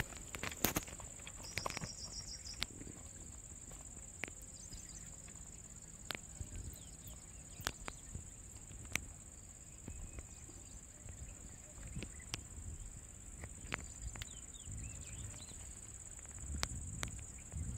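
Scattered sharp clicks and taps from handling a caught fish and working the hook and line free, over a steady high-pitched insect drone.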